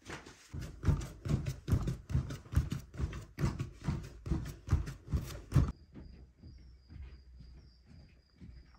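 Hands kneading and punching a large mass of bread dough on a wooden board: rhythmic thuds, about three a second, that stop abruptly about two-thirds of the way through. After that there are only soft, quieter knocks and a faint steady high tone.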